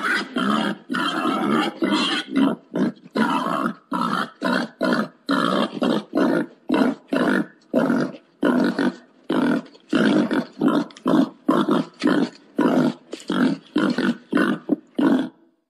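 Wild boar grunting in a rapid, even series of short grunts, about two a second, stopping shortly before the end: a boar's mating call, as used to lure wild boar.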